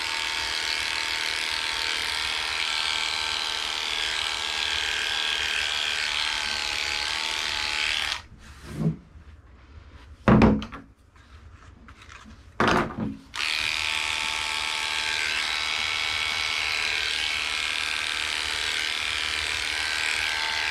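Heiniger electric dog clipper running with a steady hum while trimming a Shih Tzu's foot. It is switched off about eight seconds in and back on about five seconds later. A few knocks and one loud thump are heard while it is off.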